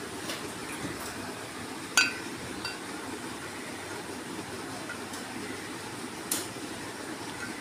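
A few light metallic clinks of small brass-coloured metal items being handled, over a steady background hiss. The loudest comes about two seconds in with a brief ring, a fainter one follows just after, and a sharper tap comes about six seconds in.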